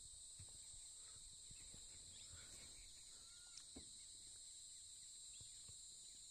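Faint, steady high-pitched drone of insects, with a couple of soft bird chirps and a few light ticks.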